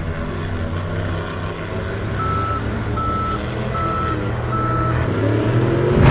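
Construction vehicle engine running steadily while a reversing alarm beeps four times at an even pace, starting about two seconds in. Near the end the engine note rises.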